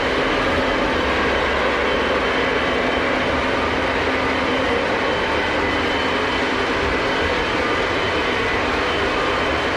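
Several Lionel O gauge model trains running at the same time: a steady rumble of wheels on track mixed with the hum of their electric motors, unchanging in level.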